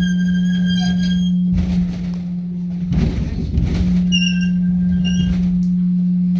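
Two long, steady high-pitched squeaks, about a second each, near the start and about four seconds in, as the rope tackle on a ship's cannon is hauled. They sit over a steady low hum, with a few knocks around three seconds in.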